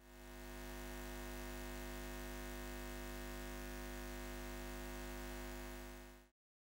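Steady electrical mains hum of a neon sign, fading in over about a second and fading out just after six seconds.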